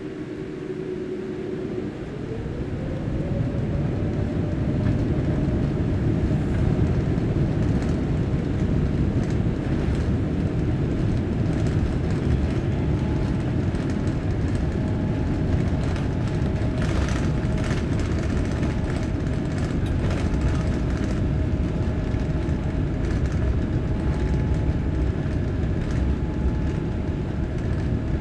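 The Boeing 787-8's General Electric turbofans spool up to takeoff thrust, heard from inside the cabin: a whine rising in pitch about two seconds in. It then settles into a loud steady roar over a low rumble as the aircraft rolls down the runway.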